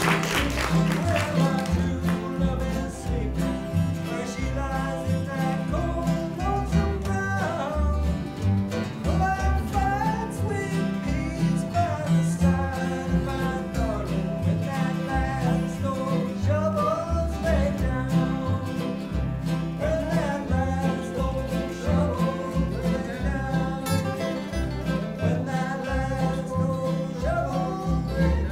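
Acoustic bluegrass band playing a song: several strummed acoustic guitars, mandolin and upright bass, with a sung melody over them.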